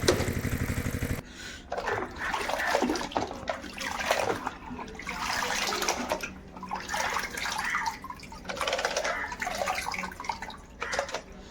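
Water splashing and sloshing in uneven surges as toys are washed. A steady motor-like buzz cuts off about a second in.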